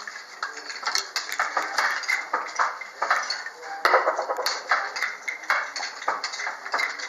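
Irregular wooden clacking and knocking, several clicks a second, from a West African narrow-strip hand loom being worked by foot and hand.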